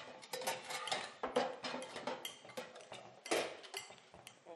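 Metal potato masher knocking and clinking against a glass bowl as boiled potatoes are mashed: a quick, irregular string of knocks, loudest about a second and a half in and again just after three seconds.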